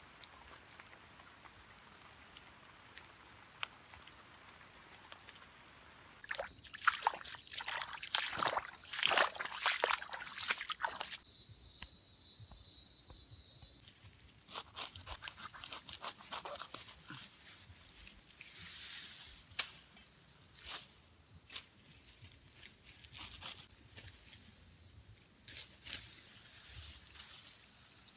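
Wet rainforest ambience at night: water dripping and sloshing with irregular clicks and splashes, and from about six seconds in a steady high drone, typical of an insect chorus.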